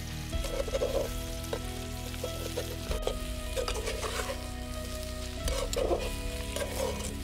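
Diced banana frying in a large metal pan, sizzling, while a spatula stirs and scrapes through it in several separate strokes.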